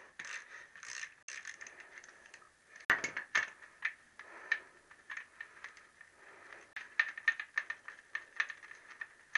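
Hand tools working the fasteners on a motorcycle gearbox outer cover: irregular sharp metallic clicks and clinks, with a quicker run of clicks near the end.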